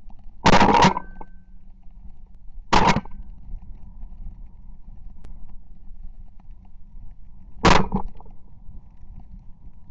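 Shotgun fired three times at flying Canada geese: a first, longer blast about half a second in, a second shot near three seconds, and a third near eight seconds.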